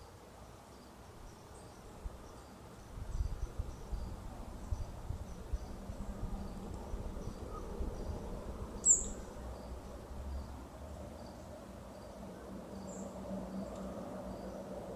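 Insects chirping in a faint, even, repeating rhythm over a low rumble. A single short, high, falling bird chirp stands out about nine seconds in.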